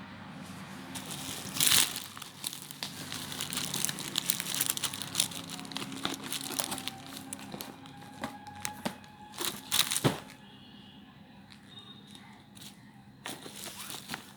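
Parcel packaging crinkling and tearing as it is opened, a busy run of rustles and clicks. The loudest bursts come about two seconds in and about ten seconds in, and it goes quieter after that.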